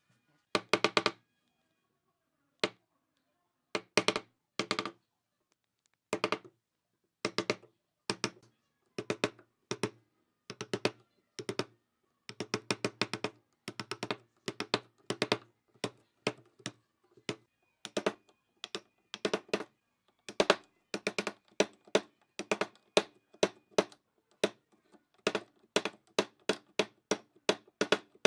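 Wooden mallet striking a steel chisel, chopping a square mortise into wood: single knocks, a second or two apart at first, then quicker, in runs of several a second through the second half.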